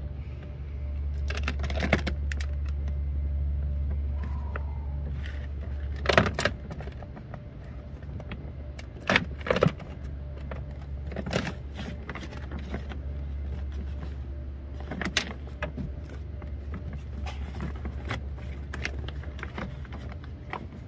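Sharp clicks and clatters of parts being handled inside a car door stripped of its trim panel, a few at a time over a steady low hum.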